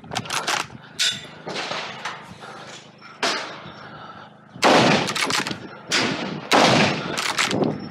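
A string of gunshots from a long gun fired during a practical shooting stage. Each is a sharp report with a short echo tail. They come at uneven intervals: a quick cluster at the start, a pause of about two seconds, then steadier shots from about three seconds in.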